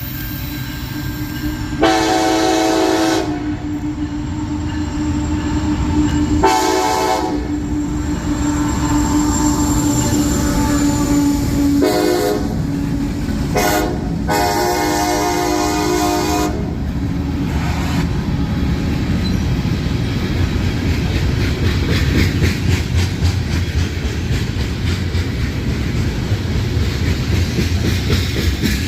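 A freight locomotive's five-chime air horn (Nathan K5HA) sounding four blasts, long, long, short, long: the grade-crossing signal. Then the train rolls past with a low rumble and rapid wheel clicks over the rail joints.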